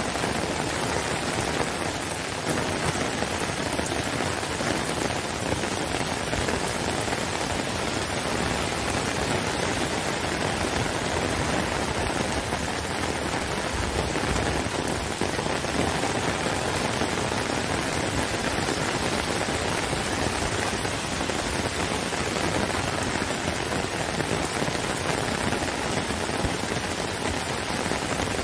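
Heavy rain falling steadily on grass and a wet brick path with puddles, an even hiss with no breaks.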